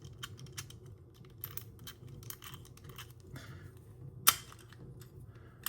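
Number wheels of a Master Lock ProSeries 1177D combination padlock being turned by hand to scramble the combination: a run of small, quick clicks, with a single louder sharp click a little over four seconds in.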